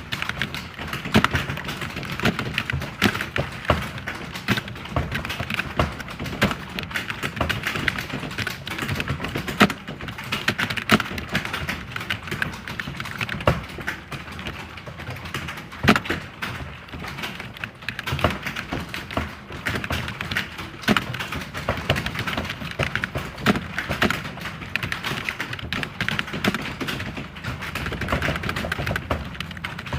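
Computer keyboard typing: a fast, continuous stream of key clicks, with a few louder strokes along the way.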